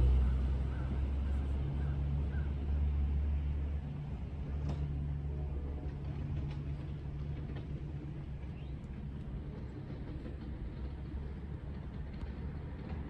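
Low, steady engine rumble, loudest at first and easing off about four seconds in.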